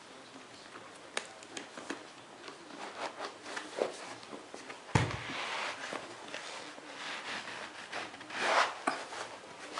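Handling noise from a plastic Kangoo Jumps rebound boot: rubbing, scraping and small clicks as its buckles and straps are worked, with a single thump about five seconds in and a louder rustle near the end.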